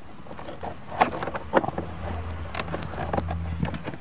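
Plastic trim-removal tool scraping and prying under the edge of the plastic dashboard speaker grille, with several sharp clicks of the grille and its clips, the first about a second in. A low steady hum runs beneath the middle part.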